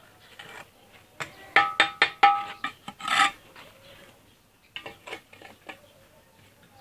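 Steel bricklayer's trowel tapping and scraping on hollow red clay bricks as they are set in place. A quick run of sharp, briefly ringing clinks comes in the first half, then a short scrape, then a few softer taps.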